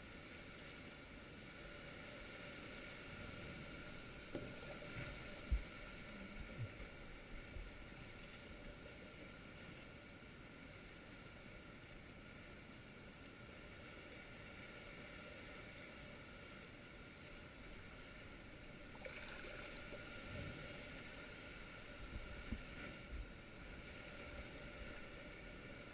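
Faint water lapping around a sea kayak on calm water, with a few soft knocks and splashes from the paddle and hull, clustered about four to eight seconds in and again around twenty seconds in.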